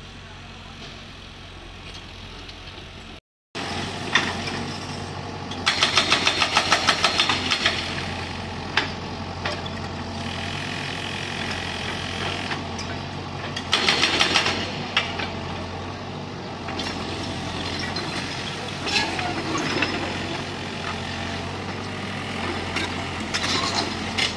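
Doosan DH55 mini excavator's diesel engine running steadily while its hydraulic breaker hammers on concrete in rapid bursts of about six blows a second, the longest lasting about two seconds, with scattered single knocks between.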